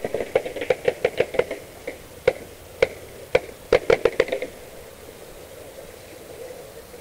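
Paintball markers firing: a rapid, irregular run of sharp pops, several a second, that stops about four and a half seconds in.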